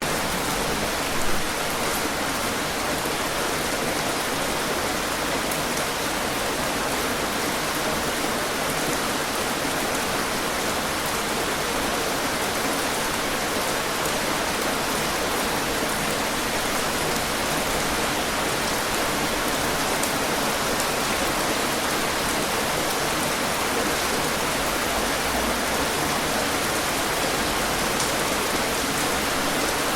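Heavy rain falling steadily: a dense, even hiss of rain with scattered sharper drop hits, and one brief louder hit about a second in.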